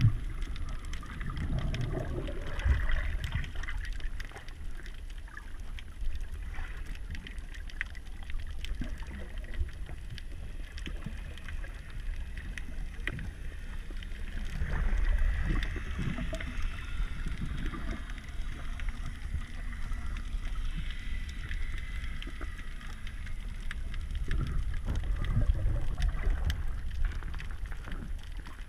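Muffled underwater noise heard through a camera's waterproof housing: a steady low rumble of water moving past it, with faint scattered clicks and three louder swells, about two seconds in, midway and near the end.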